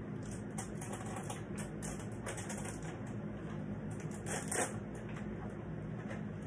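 Irregular crinkling and clicking of paper and tape being handled, with a louder crackle about four and a half seconds in, over a steady low room hum.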